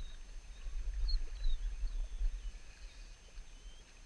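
Outdoor river ambience: an uneven low rumble with a few faint, short, high bird chirps over it.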